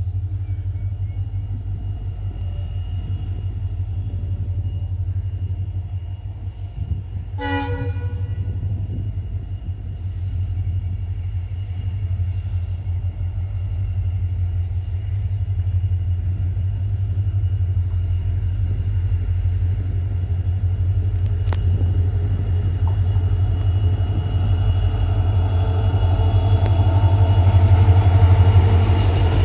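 WDG4D diesel-electric locomotive (an EMD 16-cylinder two-stroke) approaching with a low, steady engine rumble that grows louder as it draws near. It sounds one short horn blast about a quarter of the way in and comes level near the end, its engine and wheels at their loudest.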